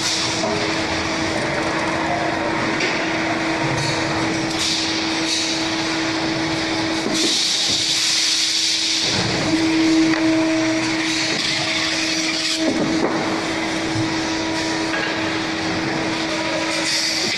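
Automatic evaporator core assembling machine for refrigerator and freezer cores running: a steady hum with spells of hissing and a few knocks.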